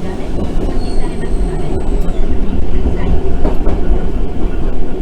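Randen (Keifuku Electric Railroad) tram running along the line, heard from inside the car: a steady low rumble of wheels and motors with scattered clicks over the track, and a faint high tone for about a second near the start.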